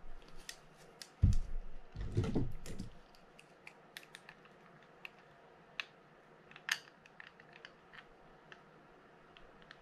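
Handling sounds from a Shimano TLD15 reel being worked with an adjustable wrench on its handle nut: a few dull thumps as tools and the reel are set down and picked up in the first three seconds, then sparse, sharp little metal clicks and taps as the wrench is fitted and worked.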